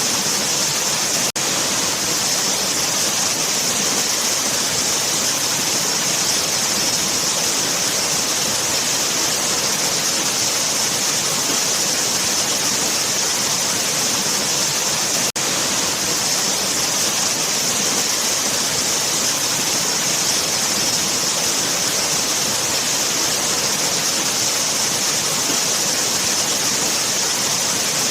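Waterfall rushing as a steady, dense roar of falling water, with a brief momentary dip about a second in and again about halfway through.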